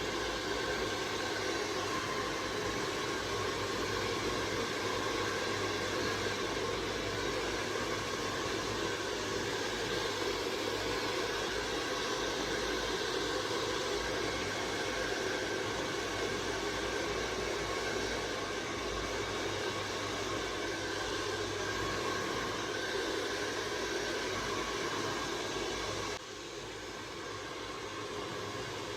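Handheld hair dryer running steadily on wet hair: an even rushing hiss of air with a faint motor whine. About 26 seconds in it becomes a little quieter and duller.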